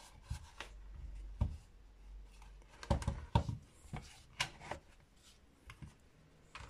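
Plastic cordless-tool battery packs handled and set down on a silicone work mat: scattered clicks, knocks and rubbing. The loudest knocks come about three seconds in.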